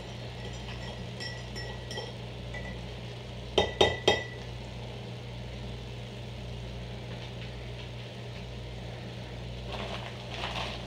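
A spoon stirring coffee in a mug with light clinks, then three sharp clinks in quick succession about three and a half seconds in, like the spoon tapped on the rim. A steady low hum runs underneath.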